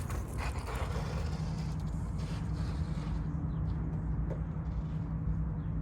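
A steady low mechanical hum over a low rumble, setting in about a second in and holding evenly, with a few faint clicks.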